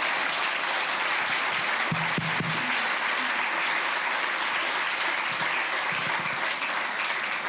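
Audience applauding steadily, dense, even clapping from a roomful of people.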